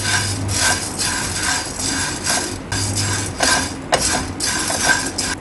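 Dry sago pearls rattling and scraping against a nonstick pan as a spatula stirs them in quick repeated strokes, about three a second: the sabudana being dry-roasted without oil.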